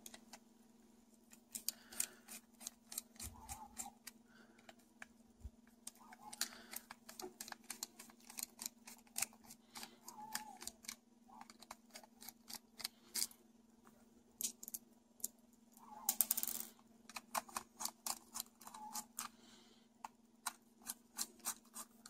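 Precision screwdriver turning tiny Phillips screws in the casing of a NiZHi TT-028 pocket FM radio: quiet, irregular clicks and ticks in runs with short pauses between, over a faint steady hum.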